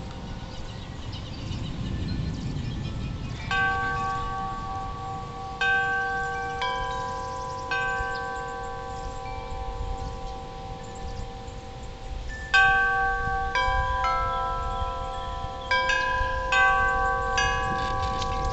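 Metal wind chimes ringing, struck irregularly in small clusters, with several pitches sustaining and overlapping, over a low rumble of wind.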